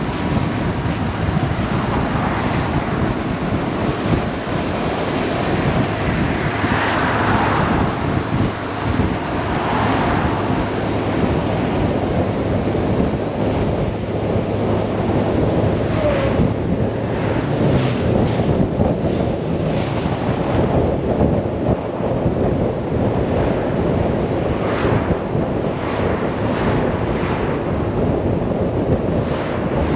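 Wind rushing over the camera microphone of a motorcycle at road speed. Underneath it runs the steady low note of the BMW R 1150 RS's boxer-twin engine.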